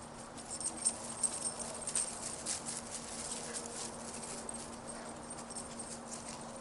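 Irregular crackling and rustling footfalls in dry woodland leaf litter, busiest over the first three seconds and then thinning out, over a faint steady low hum.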